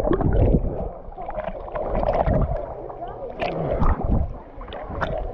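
Lake water sloshing and gurgling around a waterproof camera held at the surface as it dips under and bobs back up, with irregular splashy clicks and low muffled thumps of water on the housing.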